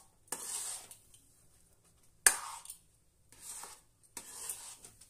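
Steel spoon scraping and stirring a thick khoa sandesh mixture around a dark-coated kadai, in about four separate strokes, with a sharp knock about two seconds in. The mixture is being cooked down until it pulls away from the sides of the pan.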